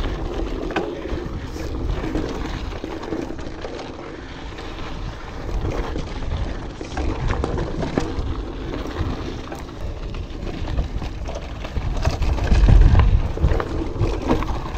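Orbea Alma mountain bike riding over a loose, rocky trail: tyres crunching on gravel with a constant clatter of small knocks and rattles as the bike jolts over rocks, and wind rumbling on the microphone, heaviest about twelve seconds in.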